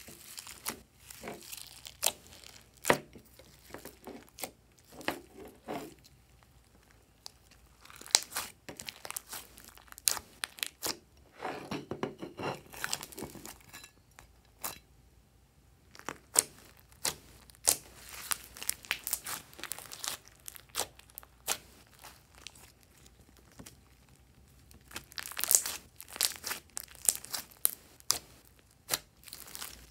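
Glossy slime mixed with foam beads and sprinkles being squeezed, stretched and folded by hand: irregular sticky clicks, pops and crackles, with a longer run of dense crackling a little before the middle.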